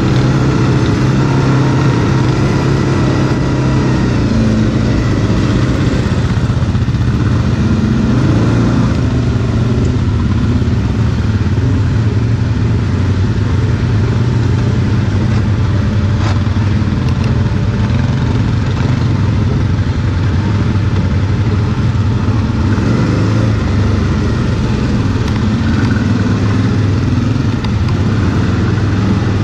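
Quad (ATV) engine running as the quad is ridden off-road, its note holding mostly steady with small shifts in throttle.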